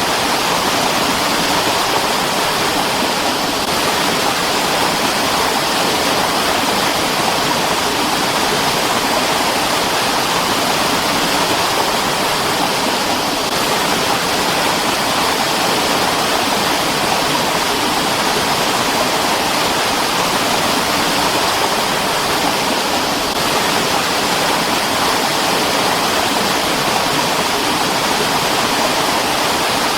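Mountain stream flowing: a steady, even rush of running water, with no rise or fall.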